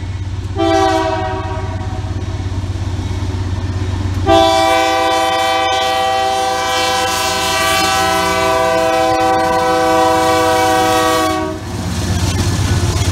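Multi-chime air horn on a BNSF diesel locomotive sounding for a grade crossing: a short blast about half a second in, then a long blast from about four seconds in, held until the locomotive reaches the crossing. Under it the diesel engines rumble steadily, and they grow louder with wheel noise as the horn cuts off and the locomotives pass.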